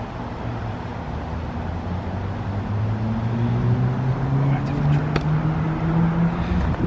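RunTru heat pump outdoor unit running in a defrost cycle: a steady rushing noise with a low hum that rises in pitch over a few seconds.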